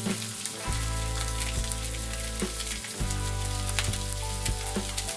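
Sea bass fillets sizzling flesh-side down in melted butter on a hot steel plancha: a steady frying hiss with irregular spitting crackles.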